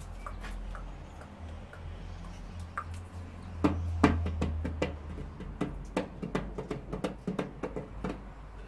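Hands opening a small packet: a run of quick, light clicks and knocks, sparse at first and coming thick and fast from about three and a half seconds in, over a low steady hum.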